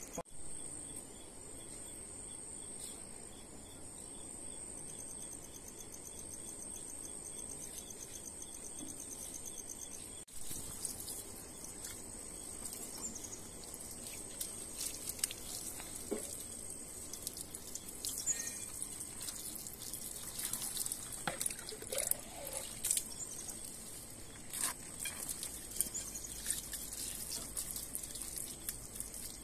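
Water poured from a plastic jug splashing and dripping onto a freshly plucked, scalded chicken as it is rinsed and rubbed by hand, with scattered small splashes from about ten seconds in. Under it runs a steady high-pitched insect trill.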